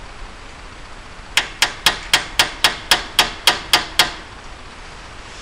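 Claw hammer striking an old wheel bearing used as a driver to seat a new axle seal in a Ford 8.8 rear axle housing. Eleven even, metallic taps, about four a second, begin about a second and a half in.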